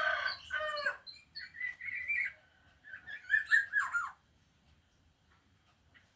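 Young black-naped oriole of the Kintamani Bali type, just out of its spotted juvenile plumage, singing: three bursts of whistled notes with gliding pitch over about four seconds, then it falls silent.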